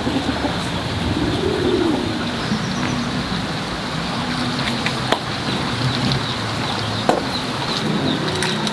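A dove cooing in low phrases that rise and fall, repeated every few seconds, over a steady background hiss. Two sharp knocks come around the middle.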